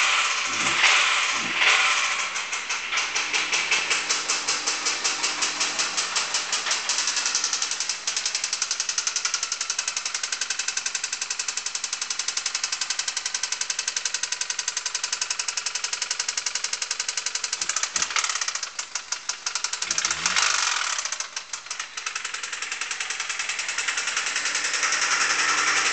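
Honda D16Y8 1.6-litre four-cylinder engine running with a fast, even knocking that follows engine speed: rod knock from a worn connecting-rod bearing. The throttle is blipped near the start and twice about three-quarters of the way through, the knock quickening with the revs.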